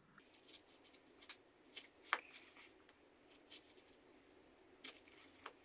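Faint scraping and a few short sharp clicks of a carving knife cutting into a small limewood Christmas-tree carving, the clearest click about two seconds in.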